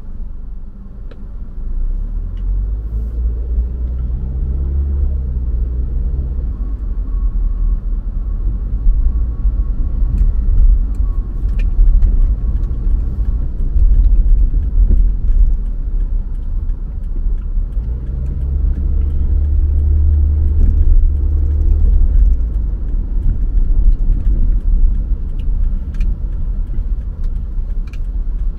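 Car driving on city roads: a steady low rumble of engine and tyre noise, with the engine note rising and swelling twice.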